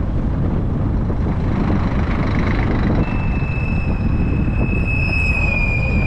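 Steady road and wind noise of a car driving along a road. About halfway through, a high steady squeal joins it and holds.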